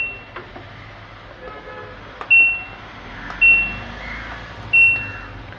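LG front-load washing machine control board's buzzer giving three short high beeps about a second apart, one for each button pressed, with faint clicks of the keys between: the panel's switches are registering properly.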